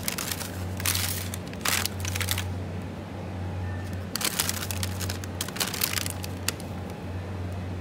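Plastic ice cream bar wrappers crinkling and rustling as a hand sorts through them in a chest freezer, in two bouts of about two seconds each, over a steady low hum.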